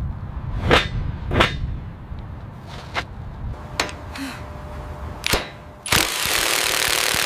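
Sharp metallic bangs of a heavy tool on the steel bolts of a glass-cladding bracket, about five of them spread over five seconds, over a low rumble. About six seconds in comes a loud hiss lasting about two seconds.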